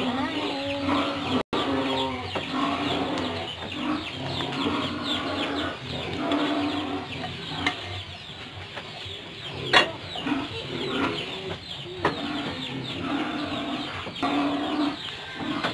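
Repeated short pitched animal calls, coming every second or so throughout, with two sharp clicks near the middle.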